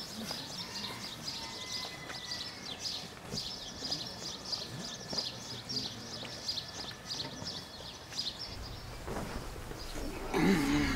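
Small birds chirping, many short rapid calls overlapping, over a steady outdoor background. Near the end there is a brief louder burst of sound.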